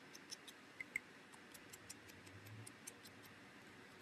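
Faint, quick, uneven light taps of a sponge ink dauber dabbing ink onto the edges of a cardstock leaf, several a second.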